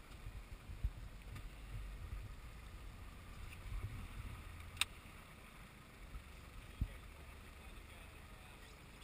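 Small aluminium rescue boat moving slowly on floodwater, with low wind rumble on the microphone and water against the hull. There are dull thumps about a second in and near seven seconds, and one sharp click near the middle.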